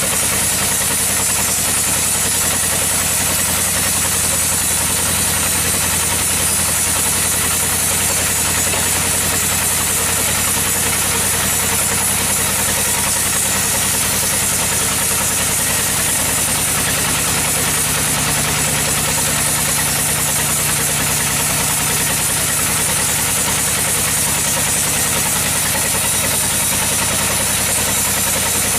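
Sawmill machinery running steadily: an engine hums at a constant speed under a continuous high hiss.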